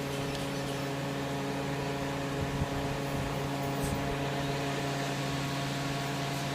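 A steady electrical hum with several constant tones over a hiss, unchanging throughout.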